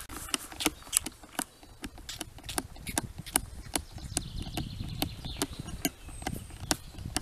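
Highland calf drinking from a plastic bucket: a run of sharp clicking sucks and gulps, about two to three a second.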